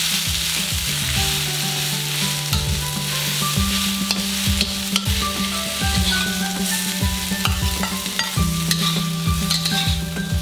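Leafy greens sizzling in oil in a hot stainless-steel wok, stir-fried with a metal spatula that scrapes and clicks against the pan in repeated strokes.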